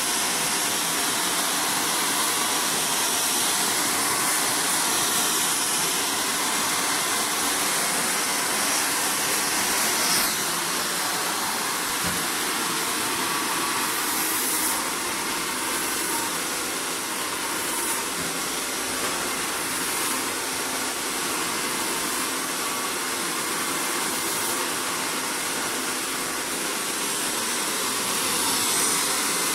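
Handheld hair dryer running steadily, blowing hot air onto hair being styled with a round brush; the rush of air swells and dips slightly as the dryer is moved around.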